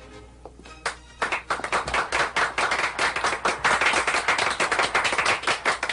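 Crowd applauding: a few scattered claps, then dense, steady applause from about a second in.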